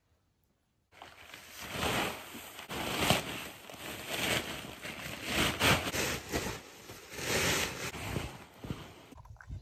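Wind buffeting the microphone outdoors. It starts abruptly about a second in as a rustling noise that swells and fades in uneven gusts every second or so, then cuts off shortly before the end.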